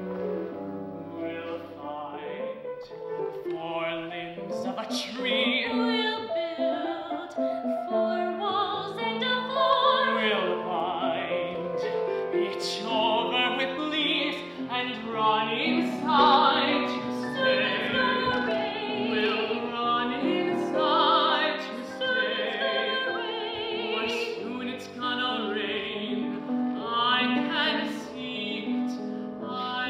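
Classical-style stage music: a wordless vibrato vocal line with piano accompaniment, running continuously.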